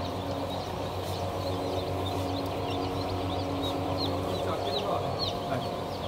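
Many newly hatched chicks peeping in stacked hatcher baskets: a scatter of short, high cheeps that overlap throughout, over a steady low machine hum.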